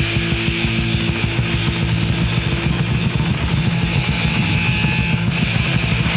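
Lo-fi hardcore punk cassette recording, instrumental: distorted electric guitar and bass holding a sustained chord over busy drumming, no vocals. A higher ringing note drops out about two and a half seconds in.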